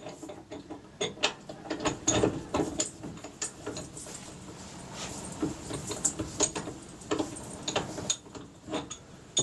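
Machine vise on a mill-drill table being wound open by hand, giving irregular metallic clicks and clunks from the handle and lead screw.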